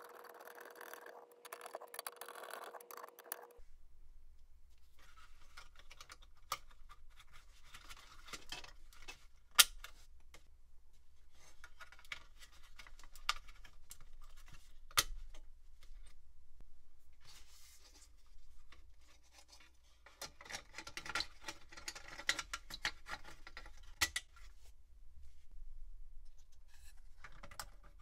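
Hand work on the inside of a Dell OptiPlex 9020 Micro: scrapes, taps and sharp clicks as parts are fitted, the loudest clicks as laptop-style memory modules are pressed home in their slots. A faint steady hum stops about three and a half seconds in.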